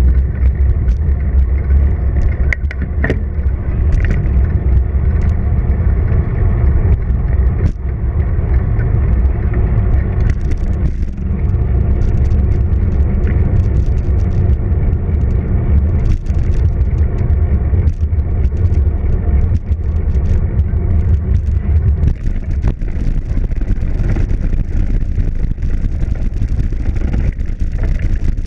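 Wind buffeting the microphone of a bike-mounted action camera while riding, with tyre rumble and scattered small clicks and rattles. The low rumble eases after about twenty seconds.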